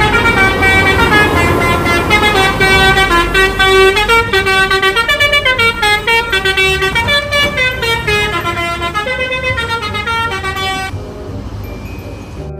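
Bus telolet horn, a set of multi-tone air horns playing a quick melody of stepped notes, over a low rumble. The melody cuts off about eleven seconds in.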